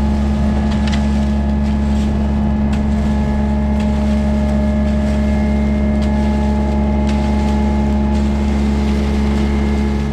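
Steady drone of a farm tractor engine running at constant speed, with light clicks and rattles from the machinery it drives.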